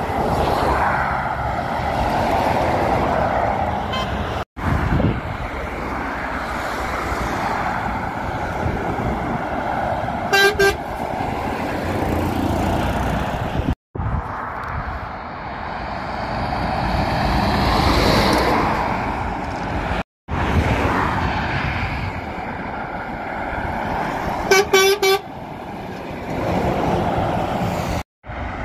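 Lorries passing along the road, their engine and tyre noise swelling and fading as each goes by. A truck horn sounds two short toots about ten seconds in and three short toots later on. The sound breaks off abruptly several times where clips are cut together.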